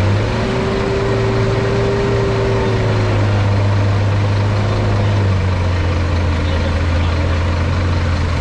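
Coach bus diesel engine held at high revs under load while its chained rear wheels spin in deep mud; the revs step up right at the start and then hold steady.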